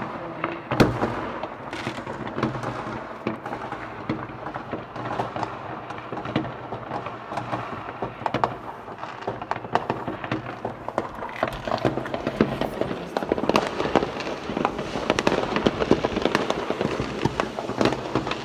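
New Year's fireworks and firecrackers going off all around: a dense, irregular crackle of bangs, with a sharp loud bang about a second in, and growing busier over the last several seconds.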